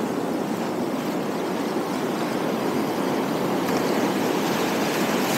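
Sea surf washing over a rocky shoreline: a steady rushing of breaking, foaming waves.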